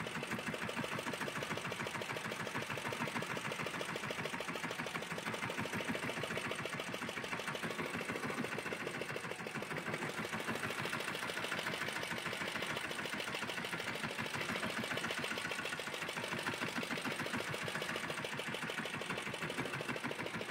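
Fishing boat's engine idling, a fast, even chugging beat.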